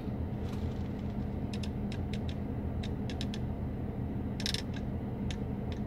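Irregular short clicks of a Mercedes E-Class W213 infotainment controller being worked to scroll through a menu, some coming in quick pairs or runs of three, over a steady low hum.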